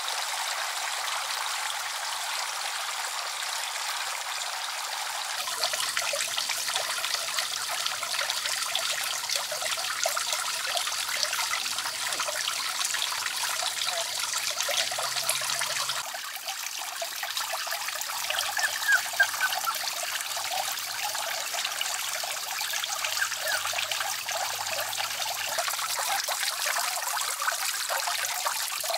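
Water trickling and pattering as many thin streams fall from holes in a bamboo pipe into a shallow pond. It runs steadily, with abrupt shifts in level about five seconds in and again a little past the middle.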